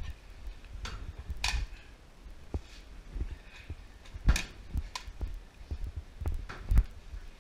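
Footsteps and gear knocking as an airsoft player moves through rooms, with irregular low thumps and a few sharp clicks, the loudest about four seconds in and again near the end.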